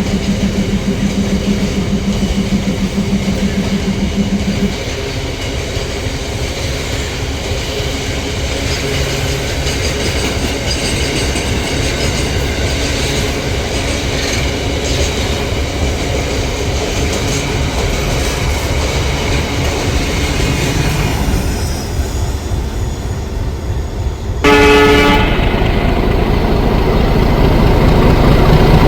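A train running on the track, wheels clacking over the rails. A held tone stops abruptly about five seconds in. Near the end a locomotive horn blasts suddenly for about a second, and the rumble stays louder afterward.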